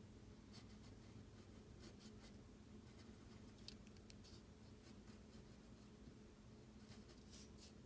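Faint pencil strokes on paper, a few short scratches now and then over a low steady hum.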